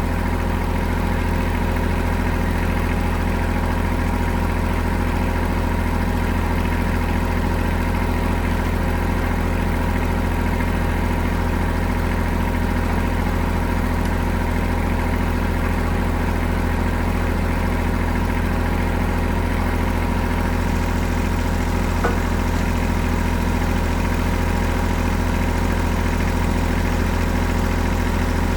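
Farm vehicle engine running steadily at one unchanging speed, with an even low rumble.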